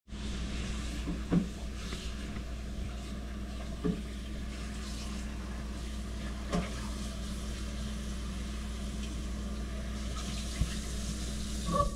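Steady hiss of running water with a low hum under it, and a few soft knocks as hands stir freshly picked Nanking cherries in a glass bowl of water.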